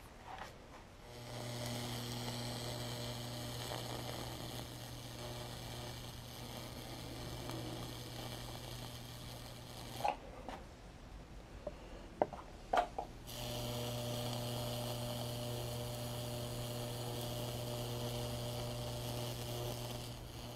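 Conestoga Works 12,000-volt Lichtenberg wood burner running: a steady electric hum with a hiss on top as the high-voltage discharge burns branching figures into the maple. It switches on about a second in, cuts out for a few seconds around the middle with a few sharp clicks, then runs again until just before the end.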